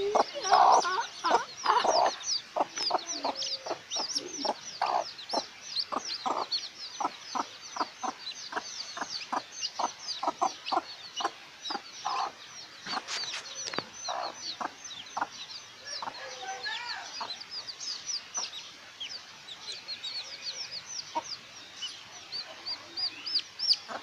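A mother hen clucking in quick repeated notes while her chicks peep constantly in high, short falling cheeps.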